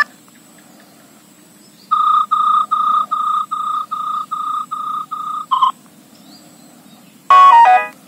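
Nokia 6610 ringtone previews from the phone's speaker. About two seconds in, a single high beep repeats about three times a second for nearly four seconds and stops. Near the end a different ringtone melody starts.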